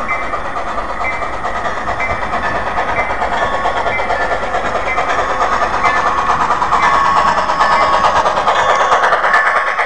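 Model steam locomotive and freight train running on the layout, a steady rattling run that grows louder as the train approaches and passes close by, about six to nine seconds in.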